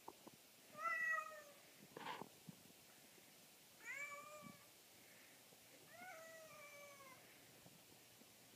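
Tabby cat meowing three times, short meows a few seconds apart, with a faint click between the first two.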